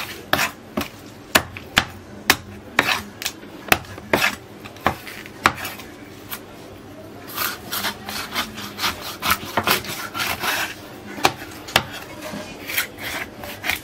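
A long knife chopping and scraping through a reef cod on a wooden cutting board. Sharp knocks of the blade hitting the board come roughly once or twice a second at first, and from about halfway through they give way to a run of rasping scraping strokes.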